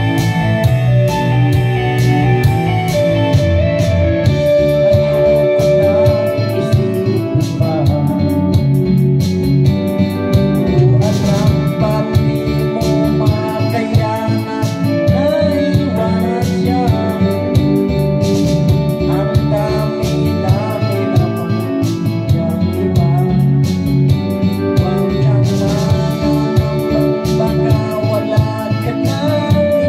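Karaoke backing music with a steady beat and a man singing along into a microphone.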